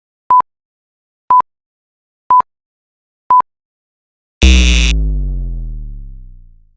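Four short, high electronic beeps exactly a second apart, like a countdown timer, followed by a loud sudden hit that drops into a deep, downward-sliding boom and fades away over about two seconds.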